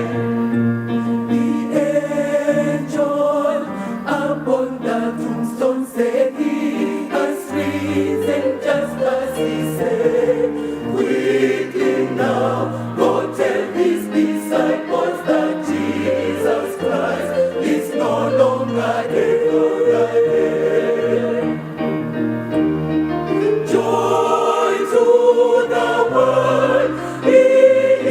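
Choir singing a gospel song in several-part harmony, with held low bass notes beneath the upper voices.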